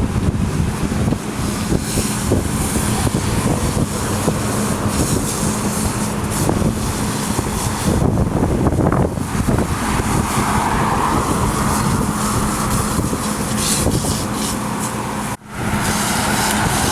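A motor vehicle's engine running with a steady hum, under a constant rush of wind and road noise. The sound drops out briefly about fifteen seconds in.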